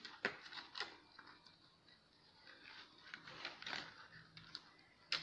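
Quiet, scattered clicks and taps of a plastic bottle cap and a plastic water bottle being handled as a bottle-cap wheel is fitted onto a wooden skewer axle.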